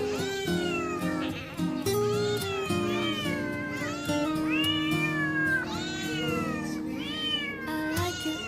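Cats meowing over and over, the calls overlapping one after another, as hungry cats begging for food do. Music plays underneath.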